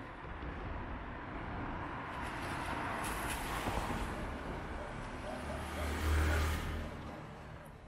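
A motor vehicle passing on the street: tyre and engine noise builds, is loudest with a low rumble about six seconds in, then fades away.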